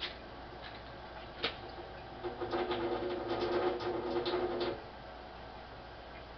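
Kitchen tap running steadily into the sink. About a second and a half in there is a single click, and from about two seconds to nearly five seconds in a louder stretch with a steady hum and crackling.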